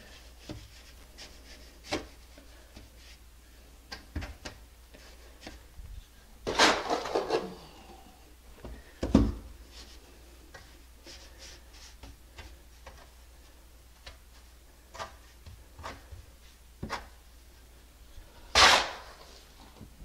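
A hand trowel spreading and patting wet mortar on a plywood subfloor: scattered soft scrapes and taps, with a few louder scrapes about six and a half, nine and nineteen seconds in.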